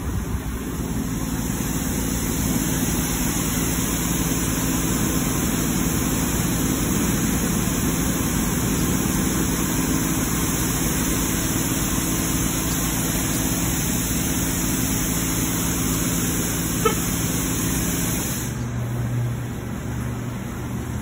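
Automatic soft-touch car wash running: a steady hiss of water spray over the hum of its pump motors. One sharp click comes near the end. The spray hiss then stops, leaving a lower hum.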